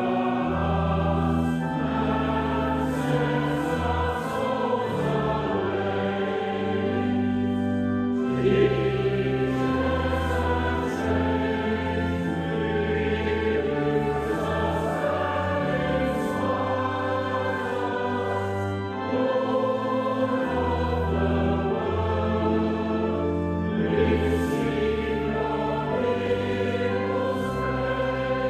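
Church music: a choir singing a hymn over long held bass notes that change step by step.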